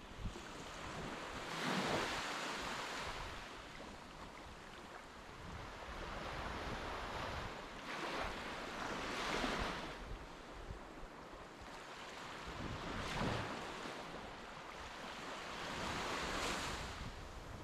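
Waves breaking and washing onto a beach, with four surges a few seconds apart.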